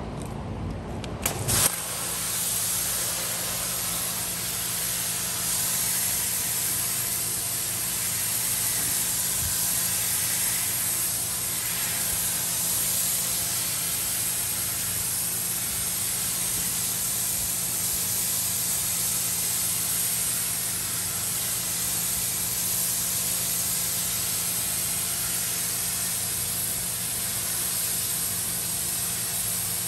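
Pressure washer spraying a jet of water onto a carpeted minivan floor mat: a steady hiss of spray over an even low hum from the washer. The spray comes on after a couple of sharp clicks about a second and a half in.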